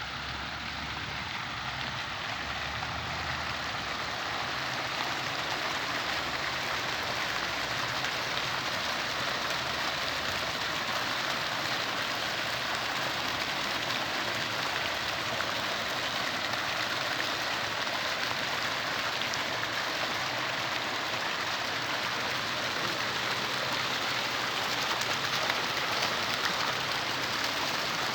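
Steady rush of splashing water, slowly growing louder.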